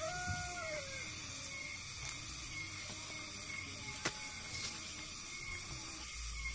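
Steady hiss of open-air background ambience. A faint falling call comes in the first second, and a single click about four seconds in.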